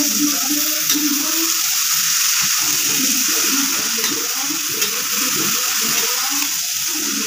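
Chopped onions frying in hot oil in an iron kadhai, a steady sizzle, as they are stirred with a metal ladle. There are a couple of light clicks of the ladle against the pan.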